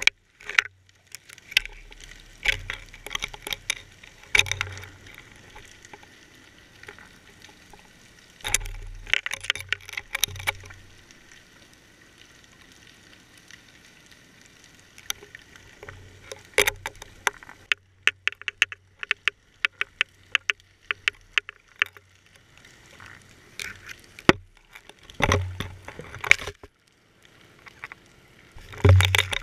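Underwater sound picked up through a GoPro's waterproof housing on a fishing line: irregular sharp clicks and knocks in clusters every few seconds, over a faint water hiss, with the loudest knocking near the end.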